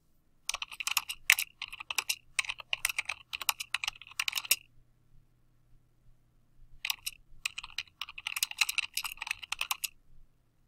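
Fast typing on a computer keyboard: two runs of rapid keystrokes with a pause of about two seconds between them.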